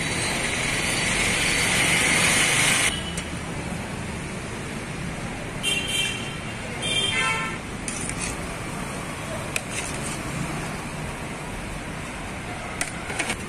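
Road traffic noise with a loud hiss that cuts off suddenly about three seconds in, then two short vehicle-horn toots around six and seven seconds in. A few sharp clinks of a steel ladle on steel serving pots come later.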